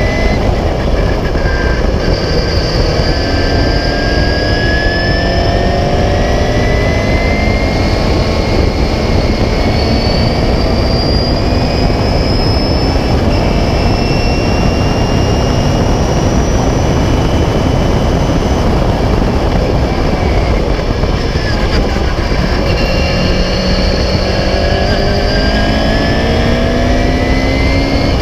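Onboard sound of a 1976 Beagle Mk4 Clubmans race car at speed: its engine running hard, the pitch climbing slowly as it accelerates, under heavy wind and tyre noise. About two-thirds in the pitch falls away, then climbs again near the end.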